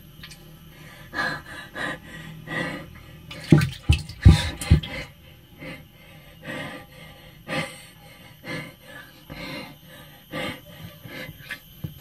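Water sloshing and lapping close to the microphone inside a closed water tank, in short irregular surges, with a cluster of several louder bumps or splashes around four seconds in.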